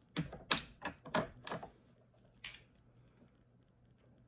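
Sharp plastic clicks and clacks of makeup products being picked through and handled: about five in quick succession in the first second and a half, then one more about two and a half seconds in.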